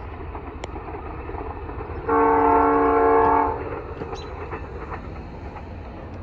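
Locomotive air horn sounding one blast of about a second and a half, a chord of several tones, about two seconds in, over a steady low rumble of the train.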